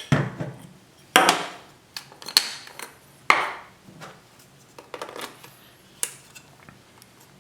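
Handling sounds as a lens is fitted to a Fujifilm X-T1 mirrorless camera body: a string of separate sharp clicks and short scraping clatters from caps coming off and the lens mount, about one a second.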